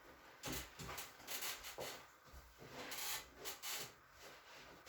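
Rustling and rubbing of clothing and skin against a chiropractic treatment table: a handful of short, irregular strokes.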